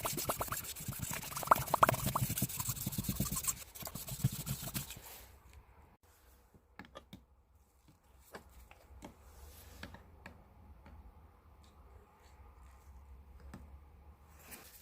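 Hand polishing a rusty hammer: quick rubbing and scraping strokes for about five seconds, then scattered light clicks and taps.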